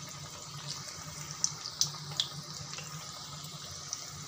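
Fish roe pakoras in gram-flour batter deep-frying in hot oil, just put in: a steady bubbling sizzle, with a few sharp crackles of spattering oil about one and a half to two seconds in.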